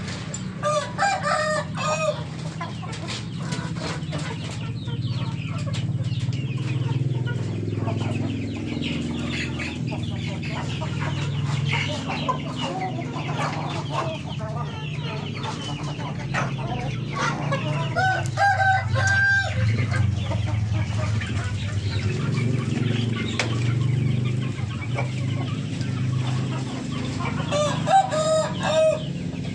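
Siamese game roosters crowing three times, each crow lasting about a second and a half: about a second in, near the middle, and near the end. Between the crows there is scattered clucking, over a steady low hum.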